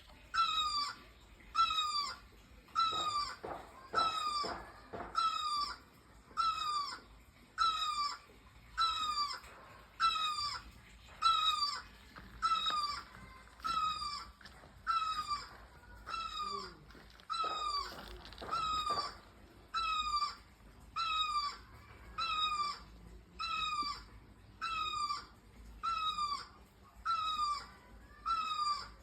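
A bird calling one short, downward-sliding note over and over at a steady pace, about once every second and a bit.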